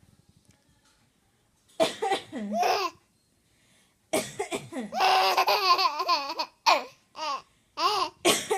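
A person in a high voice putting on fake coughs that break into laughter: a couple of short coughs about two seconds in, a long wavering laugh from about four seconds, then several more short bursts near the end.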